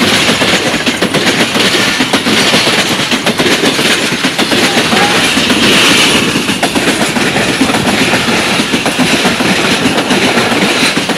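A Pakistan Railways express passenger train's coaches run past close by at speed, with a steady, loud rumble and clatter of steel wheels on the rails. The sound is loudest about six seconds in, as the nearest coaches go by.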